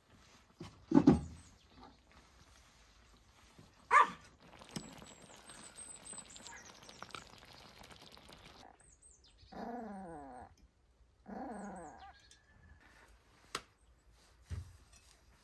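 A dog barks twice, a few seconds apart, then whines in two drawn-out stretches, with birds chirping high in the background.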